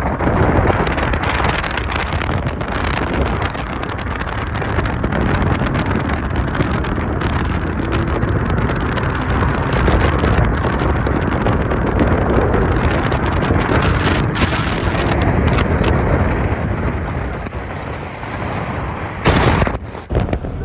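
A Mercedes-Benz car driving at speed, its wind and road noise steady, with wind buffeting the microphone at the side window. A brief loud rustle near the end.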